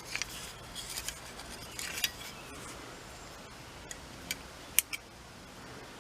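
Small steel parts, the removed hinge bolts and pieces, clinking and tapping against each other as they are handled: a scattering of light clicks, the sharpest two close together near the end.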